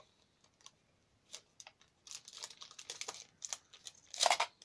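A small cardboard box being opened by hand: scattered light scrapes and clicks of the flap at first, then about two seconds in a run of crinkly rustling as the box and its paper packing are handled, with the loudest rustle near the end.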